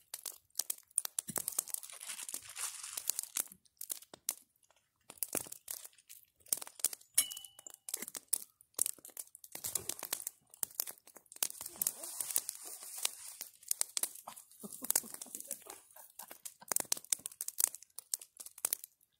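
Wood campfire burning, crackling with many irregular sharp pops and snaps, with stretches of soft hissing.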